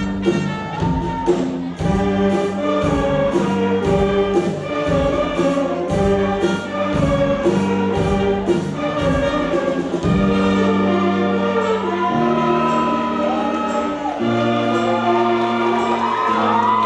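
School concert band of clarinets, flutes, saxophones and trumpets playing a piece. A steady beat runs under the chords for the first ten seconds or so, then drops away, leaving long held notes.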